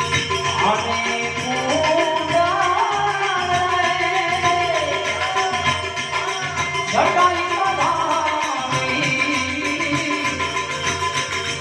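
Gujarati santvani devotional folk song: a man sings long, wavering held notes over a steady percussion rhythm with tabla. A new sung phrase begins about seven seconds in.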